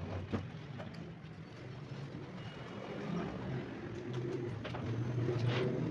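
Pigeon cooing in low, repeated phrases, over a steady background hum, with a sharp knock about a third of a second in.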